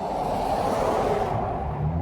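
Street traffic: a passing vehicle brings a swell of rushing road noise, and near the end an engine begins to accelerate with a rising pitch.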